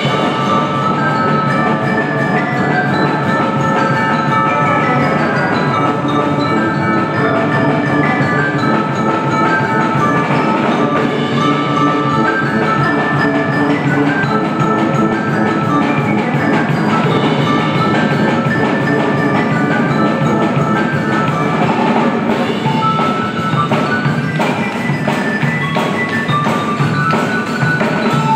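Percussion ensemble playing continuously: quick melodic lines on tuned mallet percussion such as marimba and glockenspiel, over drums.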